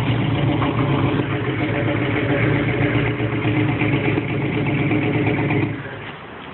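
Engine idling steadily, then cutting off suddenly near the end.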